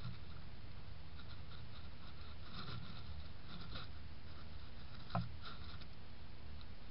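Faint rustling and scratching as a red fox noses through dry leaves and grass right at the trail camera, with one sharp click about five seconds in. A steady low hum from the trail camera runs underneath.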